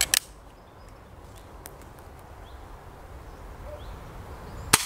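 A single shot from a Weihrauch HW45 spring-piston air pistol firing a .177 pellet, sharp and short, near the end. A couple of sharp clicks at the start, and faint bird chirps in the quiet between.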